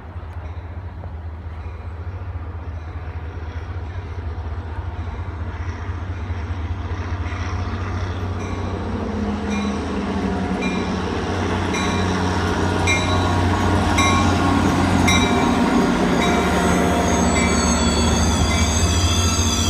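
Caltrain Baby Bullet express train approaching, its diesel locomotive's low hum growing steadily louder. From about halfway in there is a regular tick about once a second, and a high, wavering wheel squeal sets in near the end.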